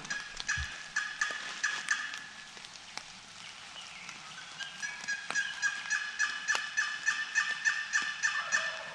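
Turkey yelping: two long runs of quick, evenly spaced notes, about five a second, the second run longer.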